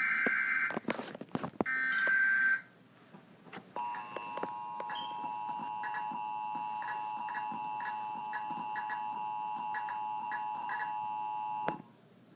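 Emergency Alert System tones for a tornado warning: loud, short screeching bursts of the digital header data, then the steady two-tone attention signal, held for about eight seconds and cutting off sharply near the end.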